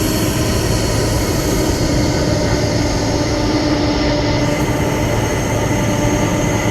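Boeing 747-400F freighter's four turbofan engines running at taxi power: a loud, steady rumble with a high, even whine over it.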